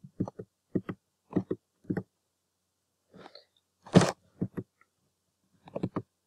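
A woman's voice in brief, quiet mutterings and mouth sounds, broken by gaps, with one sharper click-like sound about four seconds in.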